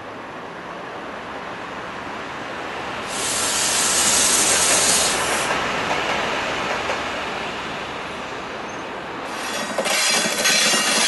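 A Freightliner freight locomotive passing close by, a steady rising rumble and rush of noise, with a loud hiss about three seconds in that lasts a couple of seconds. Music with drums comes in near the end.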